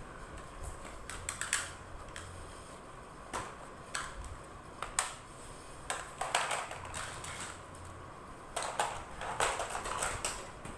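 Plastic toy guns clicking and clacking as a toddler handles them: irregular sharp clicks, some in quick clusters, with a busier run near the end.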